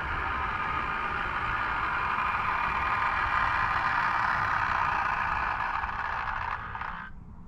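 Model train running on the track: a steady whirring rumble of motor and wheels that cuts off suddenly near the end.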